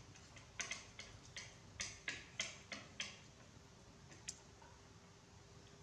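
Faint, irregular light clicks and taps of chopsticks and fingers against a plastic plate and a metal pot while a small monkey is fed noodles: about ten in the first three seconds, then one more a little past the middle.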